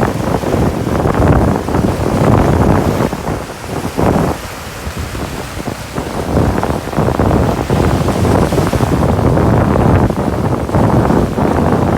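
Ocean surf washing on a beach, mixed with heavy wind buffeting the microphone, easing briefly about four seconds in.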